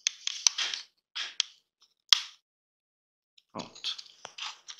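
Plastic pry spatulas scraping and clicking against the tachometer needle hub of a Citroën C3 Aircross instrument cluster as the needle is levered off its spindle. Short scraping rasps with several sharp clicks.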